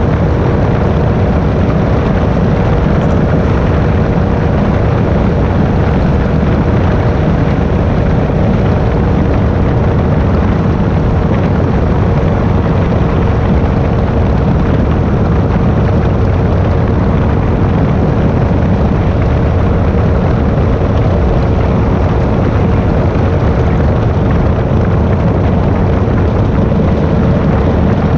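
Airwolf powered parachute's engine and pusher propeller running steadily in cruising flight, a loud, unchanging drone with one held tone.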